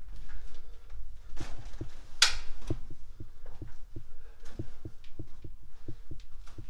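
Footsteps walking over rubble-strewn concrete in a narrow bunker corridor: soft, regular thuds about two to three a second, with one sharp crunch or scrape about two seconds in.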